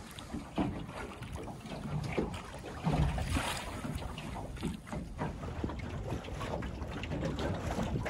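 Water rushing and splashing along the hull of a small Scamp sailing dinghy under sail, with wind buffeting the microphone. It gets louder about three seconds in.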